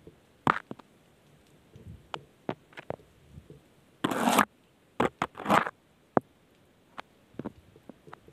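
A round netted crab trap being handled: its netting and frame rustle and scrape, with scattered small clicks and two louder scraping rustles about four and five and a half seconds in.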